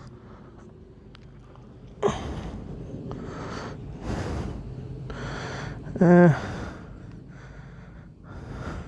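A man breathing close to a helmet-mounted microphone, with a thump about two seconds in and a short grunt about six seconds in.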